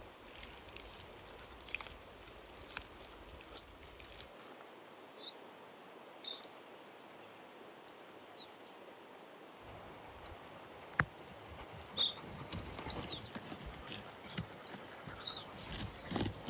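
Quiet forest ambience: a faint steady hiss with short, high chirps of small birds and scattered clicks and taps.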